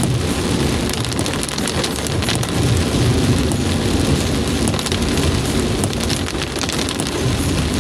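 Heavy rain pelting the windshield and roof of a moving car, heard from inside the cabin as a dense hiss of many small drop hits, over the steady low rumble of the car on the wet road.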